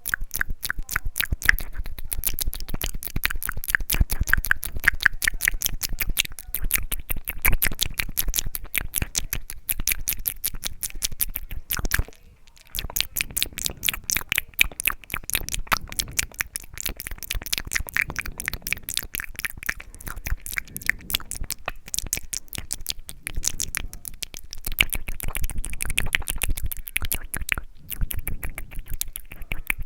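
Close-miked wet mouth sounds: rapid tongue clicks and lip smacks, many per second, with a brief pause about twelve seconds in and another near the end.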